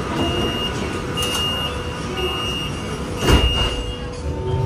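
Metro train door-closing warning: a high beep repeating about once a second over the train's rumble, with a heavy thump a little over three seconds in as the doors shut.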